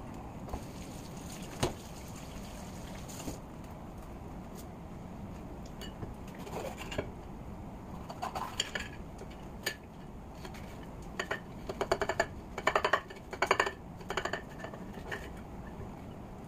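Kitchen knife cutting a green bell pepper on a ceramic plate: crisp slicing strokes and clicks of the blade against the plate. The cuts start about six seconds in, come in quick clusters, and are loudest about two-thirds of the way through.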